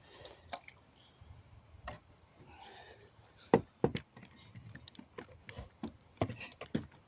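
Scattered sharp knocks and clicks of a hammer working nails out of wooden pallet planks. The loudest is a single knock about three and a half seconds in, with a quick pair just after and two more near the end.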